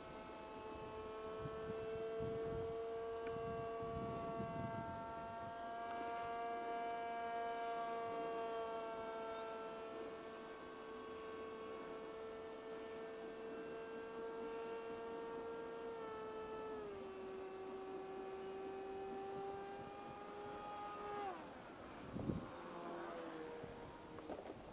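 Multiplex Shark RC model plane's motor and propeller whining steadily in flight. About two thirds of the way through the pitch steps down a little. Near the end it falls away sharply as the motor is throttled back, and a brief knock follows.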